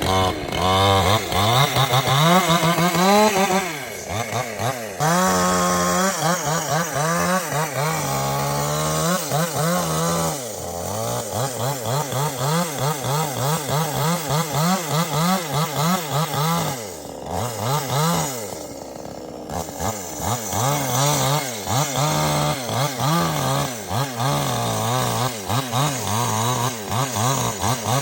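Chainsaw engine running and cutting into a palm trunk, its revs rising and falling over and over as the throttle is worked.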